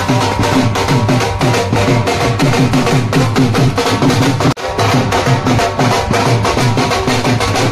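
Baraat wedding band music: dhol drums beaten with sticks in a fast, driving rhythm, with a melody over them. The music drops out for an instant about halfway through.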